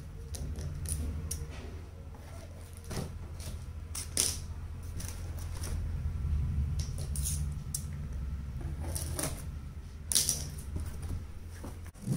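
Large corrugated cardboard shipping box being handled and opened: scattered crackles, scrapes and knocks of the flaps and an inner carton being moved, the loudest about 4 and 10 seconds in. A steady low hum runs underneath.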